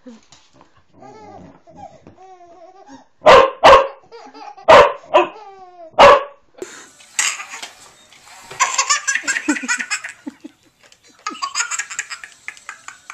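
A dog barks loudly four times, and a baby answers with long runs of laughter in quick rhythmic bursts. The barks are the loudest sounds.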